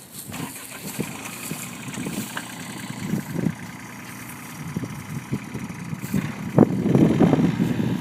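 3-ton mini excavator running as it digs, its engine a steady low rumble with scattered knocks, growing louder about six and a half seconds in.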